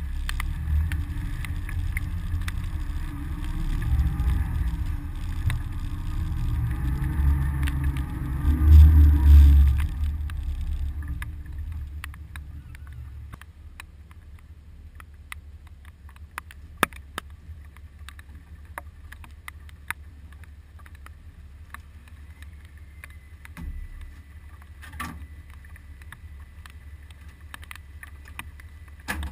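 Low rumble of a trailered boat being moved behind a tow vehicle on a wet ramp, loudest about nine seconds in. After about twelve seconds it drops to the faint low hum of the boat's idling outboard motor, with scattered light ticks.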